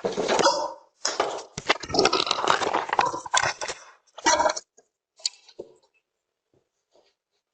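Loud, rapid clattering and knocking close to a Ring doorbell camera's microphone for about four seconds, then a shorter burst and a few faint knocks.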